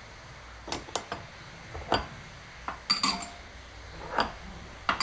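Crockery and cutlery clinking in a café, about ten sharp, unevenly spaced clinks, several with a short high ring, over a low steady room hum.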